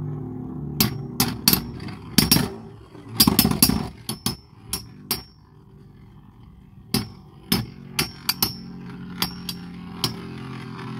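Two metal-wheeled Beyblade spinning tops clashing: a run of sharp metallic clinks, thickest about three to four seconds in, then a pause of a second or so before more scattered hits.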